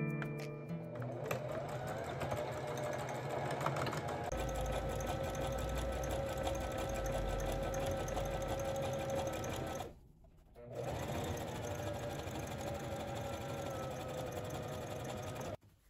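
Brother domestic sewing machine running steadily as it stitches coils of hemp rope together into a round basket base. It stops briefly about two-thirds of the way through, then runs again until just before the end.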